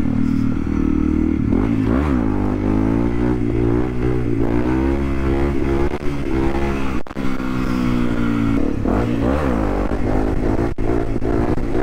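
Honda CRF dual-sport's single-cylinder engine under way, revving up and falling back several times as the rider throttles and shifts, with two brief dips in sound at about seven and eleven seconds.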